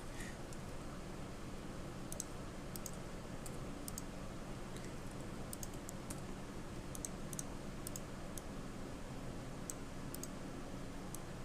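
Computer mouse and keyboard clicks while working in 3D modeling software: short, sharp clicks at irregular times, several in quick pairs, over a steady low hum.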